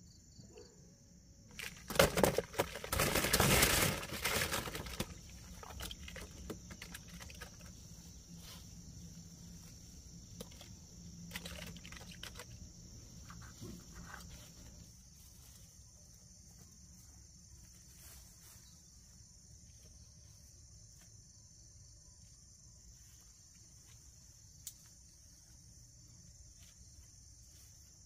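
Steady high-pitched insect chirring. A loud burst of noise comes about two seconds in and lasts a couple of seconds, followed by scattered faint knocks.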